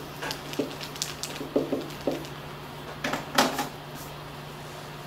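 Marker writing on a whiteboard: a run of short strokes and taps as words are written, the loudest cluster a little past three seconds in, then the writing stops. A low steady hum underneath.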